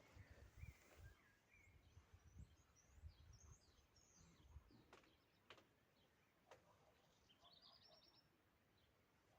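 Near silence with faint birds chirping, a quick trill about eight seconds in, and a few faint clicks.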